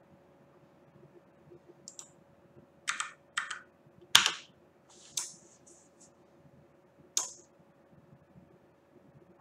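Keys pressed on a computer keyboard, a handful of separate, unhurried strokes, the loudest about four seconds in, over a faint steady hum.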